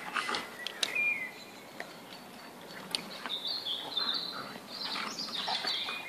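Two Irish setters scuffling on grass during play, with scattered short knocks and rustles. A high warbling chirping of birds joins from about halfway through.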